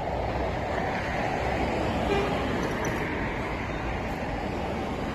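Steady hum of road traffic.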